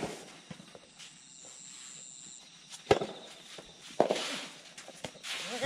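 Soft tennis play: sharp hits of rackets on the rubber soft-tennis ball, about three strokes roughly a second apart starting about three seconds in, with shoes scuffing and stepping on the sandy court.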